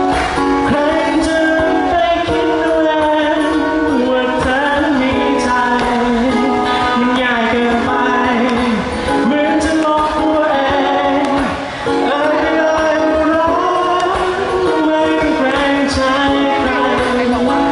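A man singing a song in Thai while accompanying himself on a ukulele.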